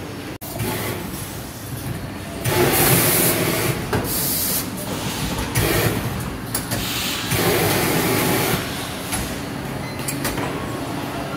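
Automated box-packaging machinery running on a factory line, with a steady mechanical noise broken by repeated loud hissing rushes lasting a second or so.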